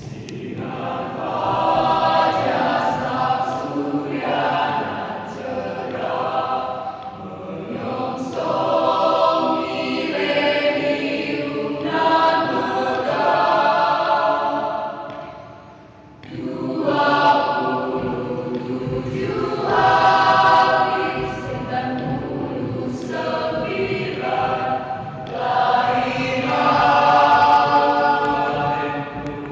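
A high-school choir singing a regional anthem in long sustained phrases, with a brief break between phrases about sixteen seconds in.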